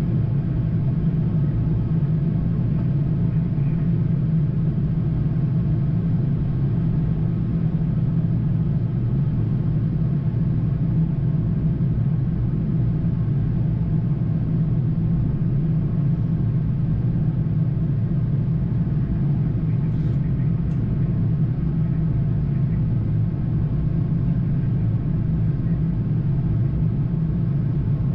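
Steady low rumble inside a Boeing 787-9 flight deck on final approach: airflow and engine noise, unchanging throughout.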